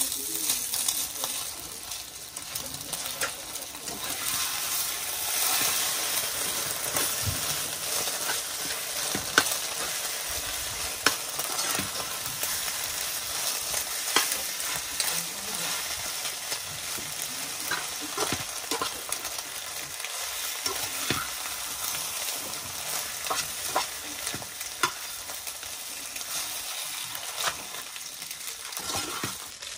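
Food sizzling in a metal frying pan over a fire that is too hot, with a fork stirring it and clicking and scraping against the pan again and again.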